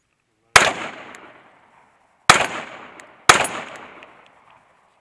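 Three pistol shots from a Glock 19C compensated 9mm handgun. There is one shot about half a second in, then two more a second apart in the middle, and each shot is followed by an echo that dies away over about a second.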